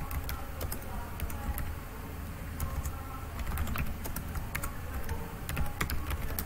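Computer keyboard being typed on: an irregular run of key clicks as a phrase is entered, over a low steady hum.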